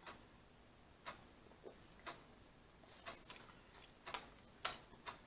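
Near silence broken by faint, irregular mouth clicks and swallows of a person drinking from a glass, about six in all, the loudest near the end.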